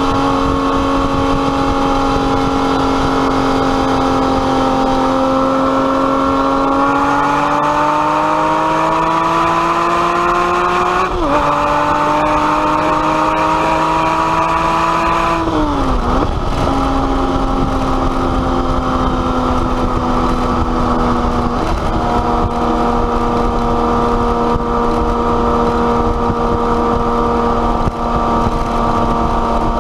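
Porsche 911 Carrera S flat-six through an aftermarket exhaust, running with a steady drone under way. The revs climb gradually, step once about 11 seconds in as at a gear change, climb again, then fall off sharply about 16 seconds in before settling back into a steady drone.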